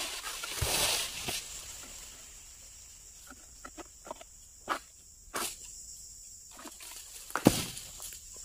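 Oil palm harvesting pole (egrek) working in a palm crown: leafy rustling and scraping for the first second or so, then scattered sharp knocks and scrapes from the sickle against fronds and trunk, the loudest near the end.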